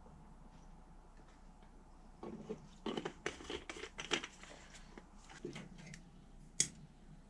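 Quiet handling noises: a scatter of light clicks, taps and rustles, with one sharper click near the end.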